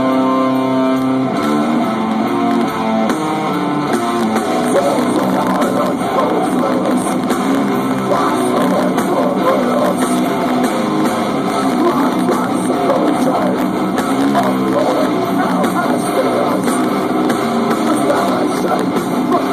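Live death metal band playing loud, heavily distorted electric guitars over drums. A guitar riff of distinct notes opens, and then the full band fills in.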